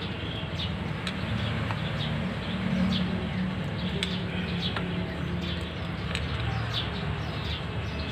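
Birds chirping and a dove cooing.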